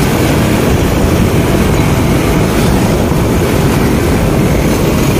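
Steady, loud rumble of a tractor under tow on a road: the lead Mahindra 575 DI's diesel engine running at road speed just ahead, mixed with tyre and wind noise.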